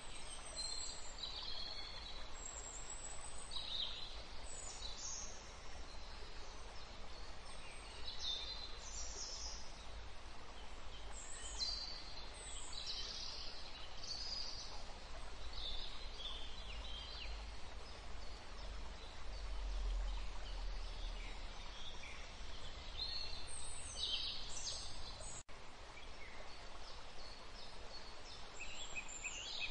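Birds chirping on and off over a steady hiss.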